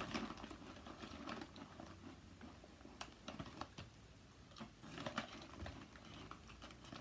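Ridged potato chips crunching as they are bitten and chewed: faint, rapid crisp cracks, in a cluster near the start and again about two-thirds of the way through.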